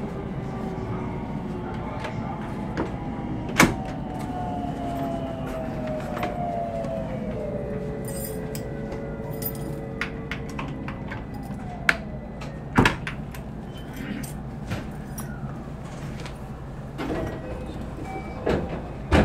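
Electric commuter train's traction motors whining and gliding down in pitch as the train slows, over a steady running rumble. A few sharp clicks and knocks cut through it.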